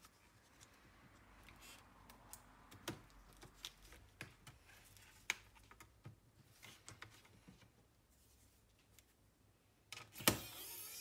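Small scattered clicks as plastic cable connectors are pried and unplugged from a laptop motherboard. About ten seconds in comes a sharp click, then a small pen-style electric screwdriver motor starts whirring, rising slightly in pitch as it spins up.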